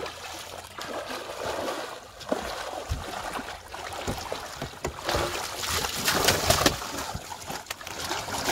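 Water splashing and streaming off a cast net as it is hauled up full of fish, which thrash in it. The splashing grows louder about halfway through.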